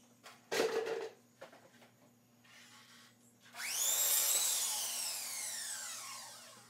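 Miter saw run for one cut: it starts suddenly about three and a half seconds in, then its motor whine falls steadily in pitch as the blade spins down. A short wooden clatter of a board comes about half a second in.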